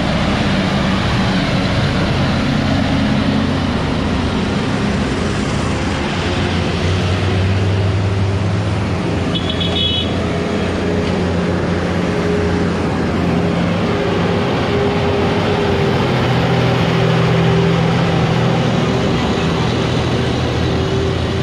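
Heavy diesel trucks passing close by at low speed, one after another, their engines running steadily with a deep drone. A short high toot sounds about ten seconds in.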